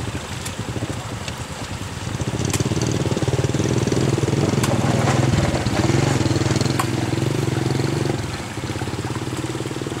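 Toyota Hilux diesel engine running, rising in level about two seconds in and holding higher under load for several seconds before easing back near the end. A few sharp knocks cut through it.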